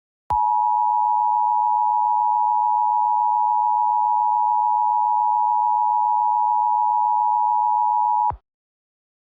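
Emergency Alert System attention signal: a steady two-tone alarm, two pitches just under 1 kHz sounding together, starting sharply and held for about eight seconds before cutting off abruptly.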